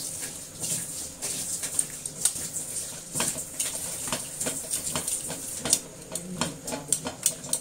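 Stainless steel tongs clicking and scraping against a non-stick pan as pechay (bok choy) is turned in blanching water: many irregular clicks over a steady hiss.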